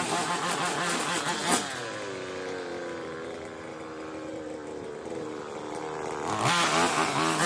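Petrol strimmer engine cutting at full throttle, then let off about a second and a half in so that it winds down and runs at a steady idle, then revved back up to full speed near the end.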